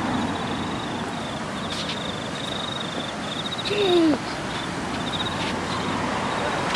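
Floodwater rushing steadily, with a high, rapidly pulsing chirp repeating over it and a single falling call about four seconds in.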